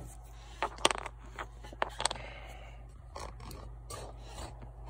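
Small parts being handled: a few sharp clicks and light scrapes, over a steady low hum.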